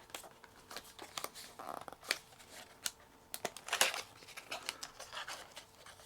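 Flashlight kit's packaging being opened and handled by hand: scattered sharp clicks with short rustles and scrapes.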